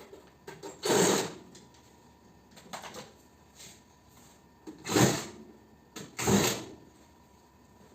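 Work on a mini-split air conditioner being stripped for scrap: three short mechanical bursts, about a second in, five seconds in and just after six seconds, with lighter clicks and knocks between.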